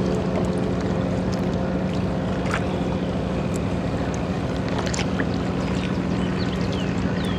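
A small boat under way: a steady motor hum over the wash of water, with a few short, high chirps scattered through.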